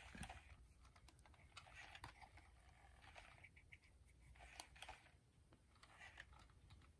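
Near silence with faint, scattered small clicks and soft whirs from a Sony aibo ERS-1000 robot dog's joint motors as it moves its head; the robot makes no sounds of its own because its speaker is detached.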